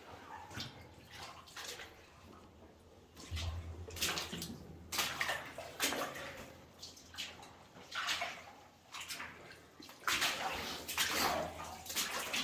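Boots wading and sloshing through shallow water in a flooded mine tunnel, in irregular splashing steps that grow louder near the end.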